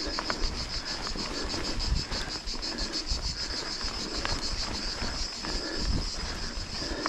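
Cicadas buzzing in a steady, rapidly pulsing high drone, over a low rumble with a few sharp clicks.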